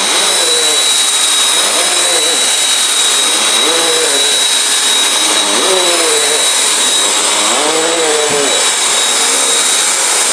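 Vacuum cleaner running steadily, a loud rushing hiss with a constant high whine from its motor. Over it, a pitched sound rises and falls about every two seconds.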